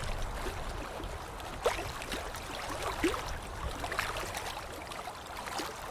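Water splashing and sloshing: a continuous wash with scattered bubbly plops and droplets, the sharpest plop about a second and a half in.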